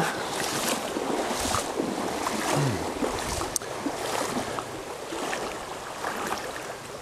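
Shallow stream running over a rocky riffle, with water splashing and swishing around an angler's wader-clad legs as he wades through it.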